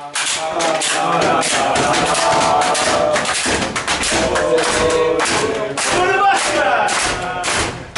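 A football team chanting and shouting together in a changing room, with fast rhythmic clapping and banging that echoes off the walls.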